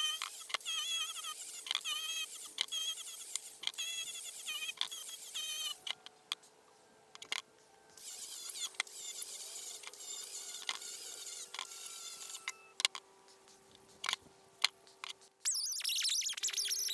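Sped-up audio of a power-tool wire wheel scrubbing rust and grime off a steel CV axle. It comes out as a high, wavering, squeaky whine with many clicks and abrupt cuts, and drops out briefly twice.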